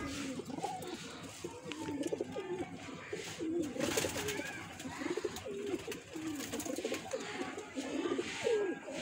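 Several domestic high-flying pigeons cooing in their loft, overlapping coos that waver up and down in pitch.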